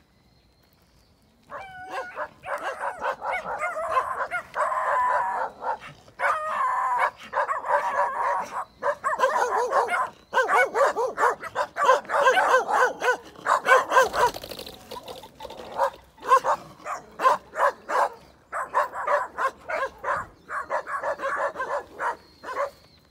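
Several dogs barking rapidly and without letup, the barks overlapping one another, starting about a second and a half in.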